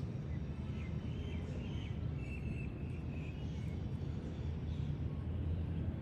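Steady low outdoor background rumble, with a few short bird chirps in the first half.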